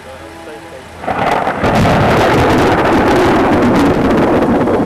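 Thunder: a loud rumble breaks in suddenly about a second in, with crackling at its start, and keeps rolling.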